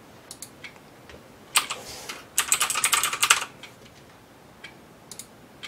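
Typing on a computer keyboard: a few separate keystrokes, then a quick run of keys in the middle, then a few more single taps near the end.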